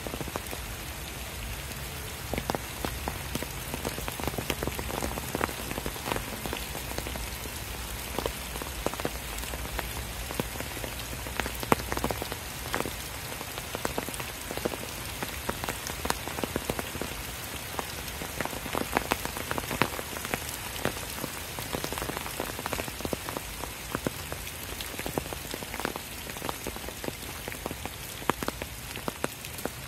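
Steady rain falling through the woods onto leaves and leaf litter: an even hiss with many separate drops ticking close by, some louder than others.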